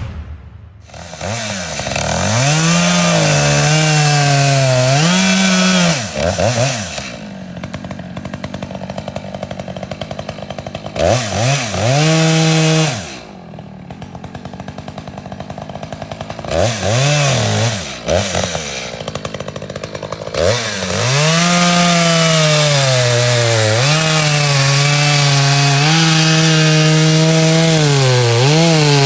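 Echo CS600P two-stroke chainsaw revving repeatedly from idle to full throttle and back, then running at high speed for a long stretch near the end with brief dips in pitch, as when the chain is in the wood.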